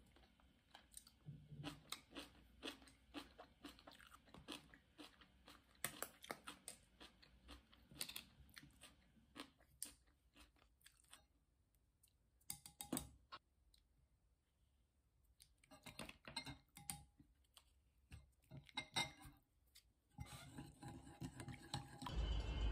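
Chewing and crunching on cubed radish kimchi (kkakdugi), a run of crisp crunches with a pause of about two seconds midway. Near the end it is cut off by music and traffic noise.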